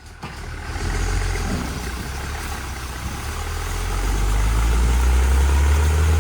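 Fiat 980 DT tractor's diesel engine running under power, low-pitched and steady, growing louder over the second half.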